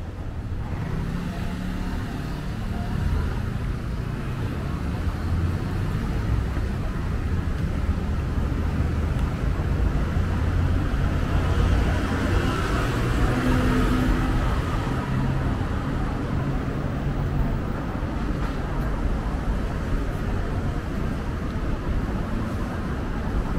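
City street traffic: cars and other vehicles running past in a steady rumble, growing louder around the middle as traffic passes close.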